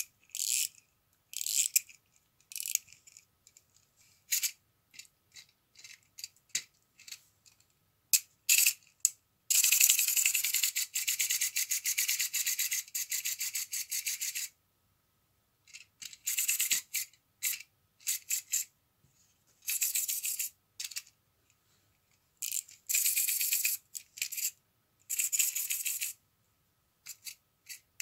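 Small plastic clockwork wind-up frog toy: its key is turned with short bursts of ratcheting clicks. The spring motor then runs with a fast, high-pitched rattling buzz for about five seconds as the toy moves. Several shorter bursts of the same clicking follow later.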